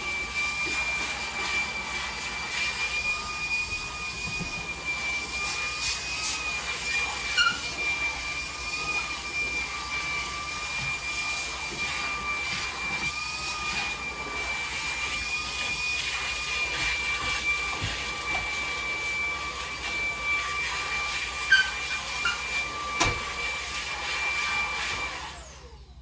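Cordless stick vacuum cleaner running steadily with a high whine over its airflow noise, with a few sharp knocks as it is worked around the floor. It switches off near the end, its whine dropping away quickly.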